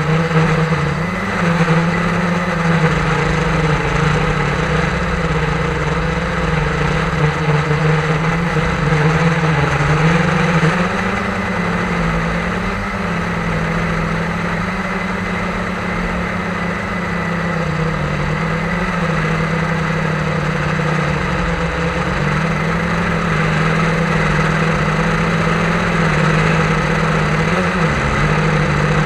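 Quadcopter drone's propellers and motors whirring steadily in flight, heard close up from the aircraft itself; the hum's pitch steps up and down a little as the motors change speed.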